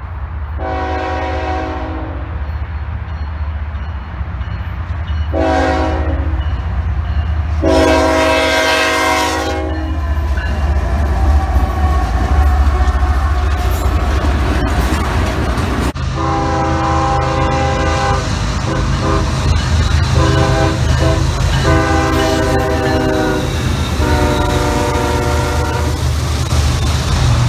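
Canadian National freight locomotive sounding its multi-note air horn three times (long, short, long) on approach, then its diesel engines and railcars rumbling past close by. After a cut at about the middle, a Norfolk Southern stack train's lead locomotive blows a series of five horn blasts over the steady low drone of its diesel engines passing.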